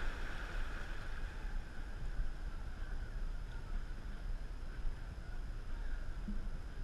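Water washing steadily along the hull of a gliding dragon boat, with wind rumbling on the microphone.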